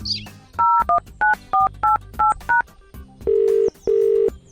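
Telephone keypad dialing tones: a quick string of short two-tone beeps as a number is entered, followed by two longer, lower ringing tones as the call rings through.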